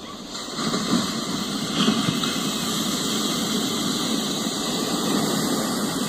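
A large ocean wave breaking and crashing into surf: a steady roar of rushing water that gets louder about half a second in.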